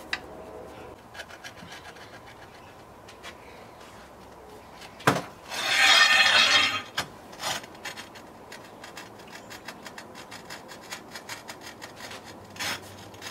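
Porcelain countertop tiles being handled and slid into place: a sharp knock about five seconds in, then a loud scraping of tile for about a second, with lighter scrapes and small taps afterwards and another short scrape near the end.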